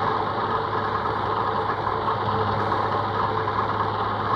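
Industrial sewing machine running steadily at speed, stitching the bound edge of a blanket, as a continuous mechanical whirr with a low hum.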